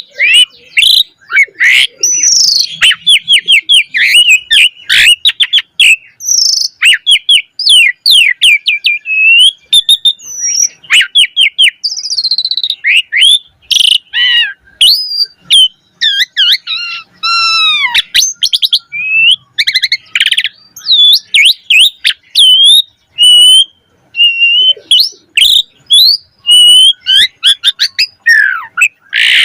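Asian pied starling (jalak suren) singing a long, continuous, varied song of rapid chirps, whistles and sliding notes, full of mimicked phrases of other birds.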